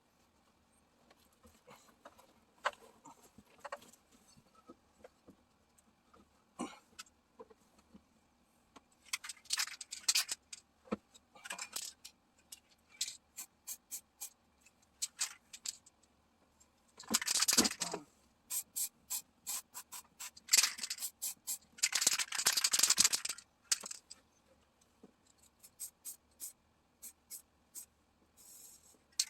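Aerosol spray-paint can rattling as it is handled, with three short hisses of spraying about nine, seventeen and twenty-two seconds in, amid clicks and scrapes of handling.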